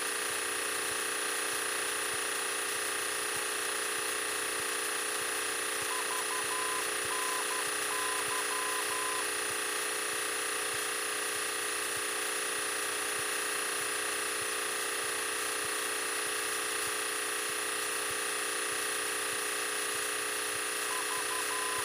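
Single-engine training airplane's piston engine droning steadily in the cockpit, with several steady tones held throughout. Faint short beeps come in about six seconds in and again near the end.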